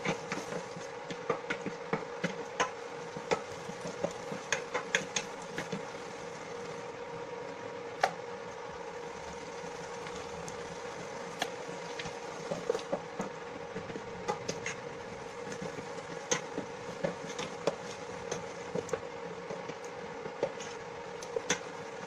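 Shrimp paste sautéing in a stainless steel pan on a portable electric cooktop: a steady hum from the cooker with scattered sharp pops and clicks from the sputtering paste and a wooden spoon stirring against the pan.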